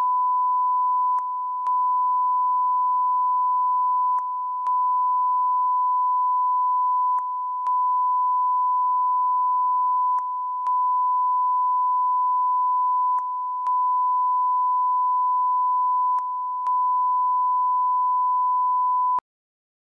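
Broadcast line-up test tone played with colour bars: one steady, unchanging beep that dips briefly in level about every three seconds, then cuts off abruptly near the end.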